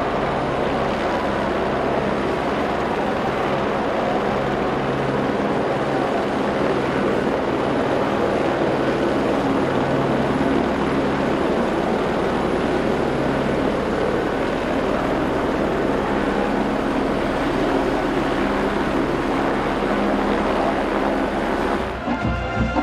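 Light helicopter running steadily as it flies in and comes down to land, with its steady rotor and engine noise. Near the end the sound cuts off suddenly.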